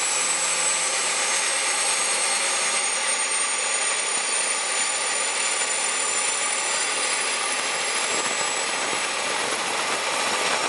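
Walter turboprop engine running on the ground, its turbine whine slowly rising in pitch as the gas generator spools up. The fuel is being added gently by hand in isolate mode just after light-off.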